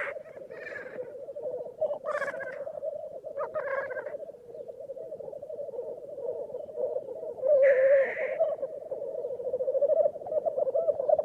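Grouse calling: a continuous low bubbling warble, broken by several short, harsh, higher-pitched calls, the loudest about eight seconds in.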